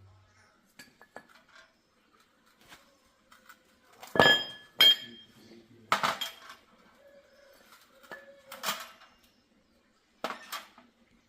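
Metal parts and tools clinking and clanking on a hard surface during motorcycle shock absorber repair. There are a few light clicks at first, then two loud ringing clinks about half a second apart around four seconds in, followed by three more scattered clanks.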